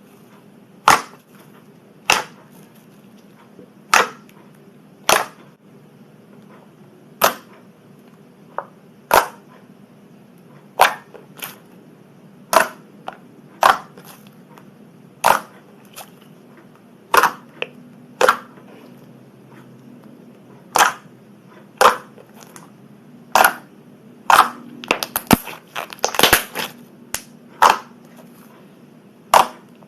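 Slime being pressed and poked, trapped air popping in sharp, loud clicks about once a second, coming faster near the end.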